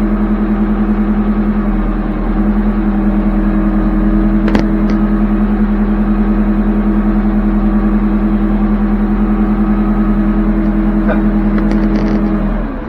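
Backhoe engine running at a steady speed, with a few sharp clicks or knocks about four seconds in and again near the end, where the engine note drops.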